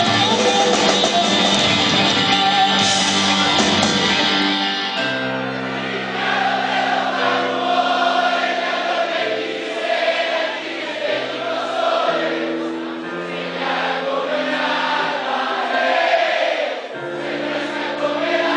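Live rock band music at a concert. About five seconds in, the full-band playing gives way to held chords over a stepping bass line, with many voices singing together.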